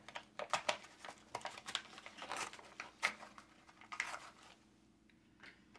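Plastic blister of a Hot Wheels package being peeled and pried off its cardboard backing card by hand: irregular crinkling and crackling of plastic and card, dying away about four and a half seconds in.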